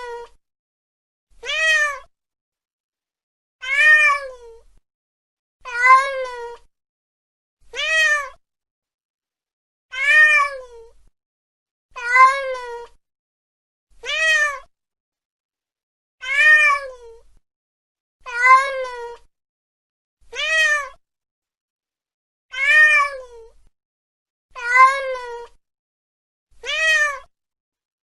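Domestic cat meowing over and over, a near-identical meow about every two seconds. Each meow rises and then falls in pitch.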